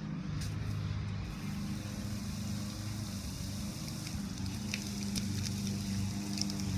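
Car wash running: a steady low mechanical hum under a hiss of spraying water, with droplets ticking from about four seconds in.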